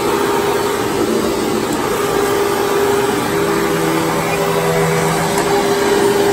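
Hoover WindTunnel Mach 2.1 upright vacuum cleaner running steadily on carpet, a loud rush of air with a motor tone holding one pitch.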